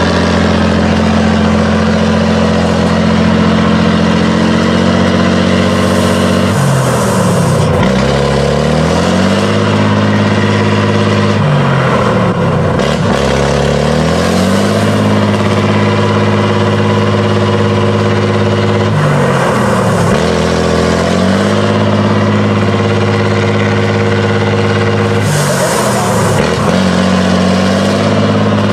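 Tatra 813 8x8 truck's diesel engine working hard at high revs under heavy load as it climbs a steep bank. The revs drop briefly and climb back four times.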